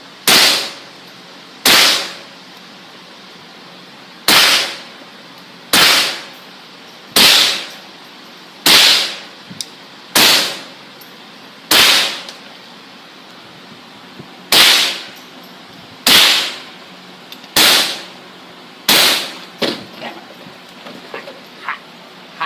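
A firearm firing single shots at a steady pace, about one every second and a half, twelve shots in all with a slightly longer gap about two thirds of the way through. Each shot is a sharp crack with a short fading tail, and a few light clicks follow near the end.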